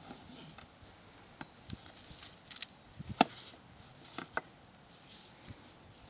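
Ratchet tie-down strap being pulled around a wooden beehive box: scattered clicks and knocks from the strap's metal hooks and buckle, the sharpest about three seconds in.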